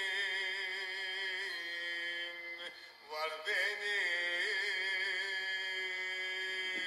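A man singing a Turkish folk song, a gurbet havası, holding long notes with a wide, wavering vibrato. The voice breaks off briefly about three seconds in, then comes back, sliding up into a new held note.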